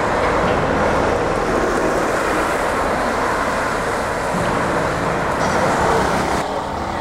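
Road traffic passing close: a bus and cars driving by, a steady rush of engine and tyre noise that eases slightly near the end.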